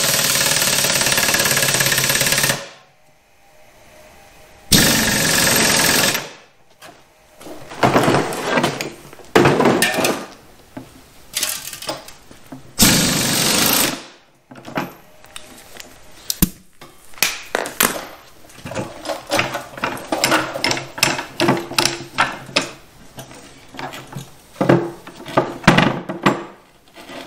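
Air impact wrench hammering on the screw of a ball joint press in about six bursts over the first fourteen seconds, the first about two and a half seconds long, forcing the old ball joint out of a control arm. After that come scattered knocks and clatter of metal parts being handled.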